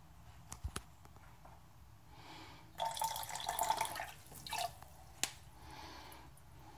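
Cold water poured from a cup into a glass pot of just-boiled coffee, a splashing pour of about two seconds starting near the three-second mark, to force the grounds to the bottom. A few light clicks come before and after it.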